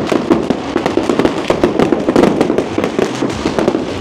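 Fireworks and firecrackers going off in rapid succession: a dense, continuous run of bangs and pops, many a second.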